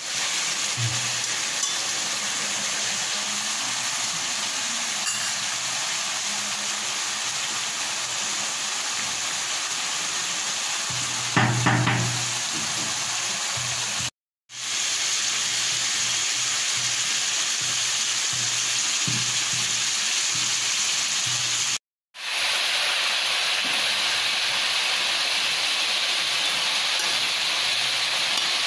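Turkey meat sizzling steadily as it fries in a wok, stirred now and then with a steel spoon. A brief louder knock comes about midway, and the sound breaks off twice for a moment.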